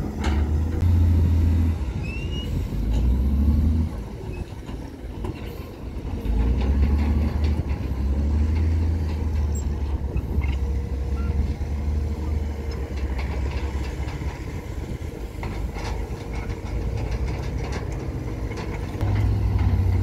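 Heavy diesel earthmoving machinery running, the deep engine sound swelling and easing off in stretches of one to several seconds, loudest through the middle and again near the end.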